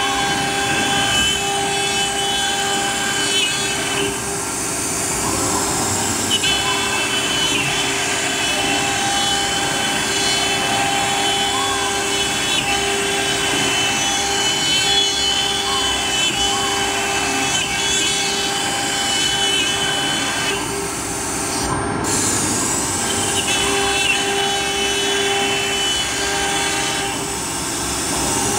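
AccTek AKM-1325 CNC router engraving grooves in an MDF sheet. The spindle whines steadily over the rasping hiss of the bit cutting the board, and a few times its higher tones briefly fall away and return.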